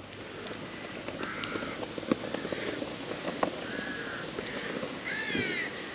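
A crow cawing several times, short harsh calls, with a few faint clicks of small tools being handled.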